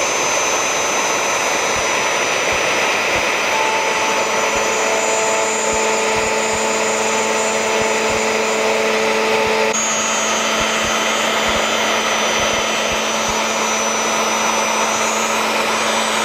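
Triton plunge router with a 3 mm straight cutting bit running at full speed and cutting through wood as it is pushed along a guide edge. It runs steadily and loudly, with an added whine from about four seconds in that stops near ten seconds.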